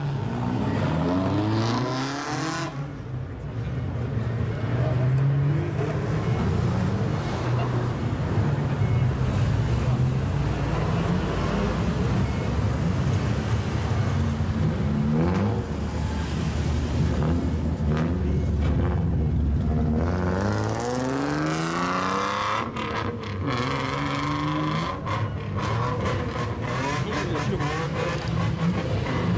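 Modified old Japanese cars with straight-piped exhausts revving and pulling away one after another, the engine note rising and falling again and again, with one strong rising rev about two-thirds of the way through.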